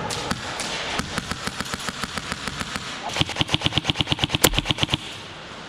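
Airsoft guns firing: scattered single shots for about three seconds, then a full-auto burst of about two seconds at around a dozen shots a second, with one louder crack in the middle of it.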